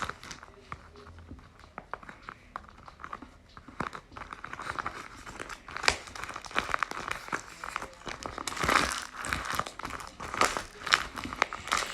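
Crinkling and rustling of craft materials being handled by hand, sparse at first and busier from about four seconds in.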